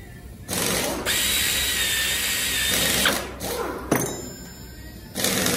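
Handheld pneumatic tool on a shop air hose run in four bursts of hissing whir, the longest about two seconds with a steady high whine as it spins.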